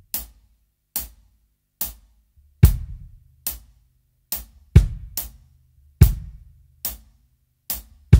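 DW drum kit playing a slow, simple kick-drum pattern: a light tick on every beat, about 70 beats a minute, with several deep bass-drum hits landing among them.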